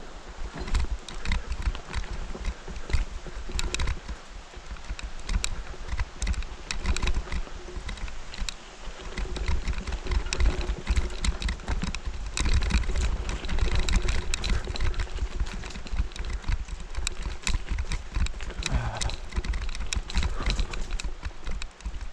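Bicycle rattling and clattering as it rides over rough, uneven ground, with many quick irregular knocks. Wind rumbles on the microphone throughout.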